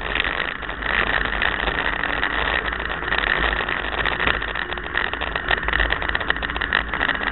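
Renault Clio Williams autocross car's two-litre four-cylinder engine running, heard from inside the cabin, with many rattles and knocks throughout.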